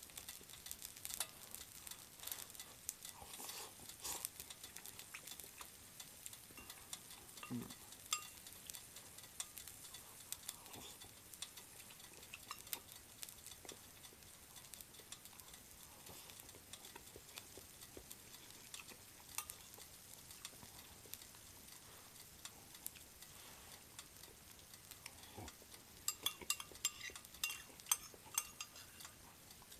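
Faint, crackling sizzle of butter-fried shrimp pilaf on a non-stick electric hot plate that is still hot after being switched off. A run of light clicks comes near the end.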